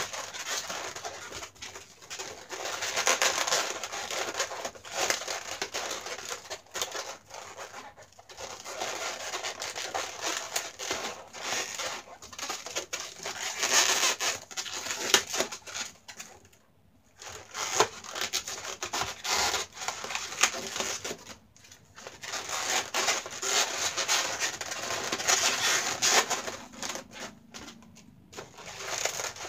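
Inflated latex modelling balloons rubbing against each other and against hands as they are twisted and woven, in irregular stretches with a short pause about halfway through.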